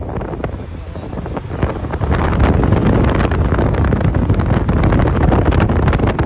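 Wind buffeting the microphone in a loud, crackling rumble, over the noise of road traffic with cars passing.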